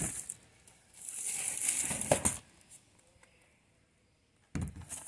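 Crinkling and rustling of shrink-wrapped cardboard fireworks boxes being handled, for about a second and a half, with more handling noise starting suddenly near the end.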